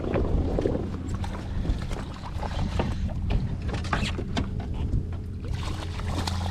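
Knocks, clicks and clatter of handling on a fishing boat as a redfish is netted and brought aboard, over a motor's steady low hum.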